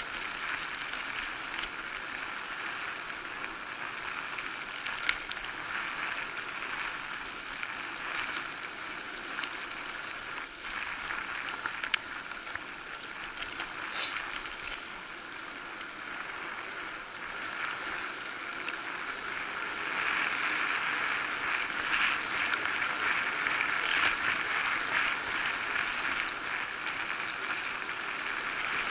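Electric bike riding over a dirt forest track: a steady rolling and rushing noise of tyres on the ground, with scattered clicks and rattles. It gets louder about two-thirds of the way in.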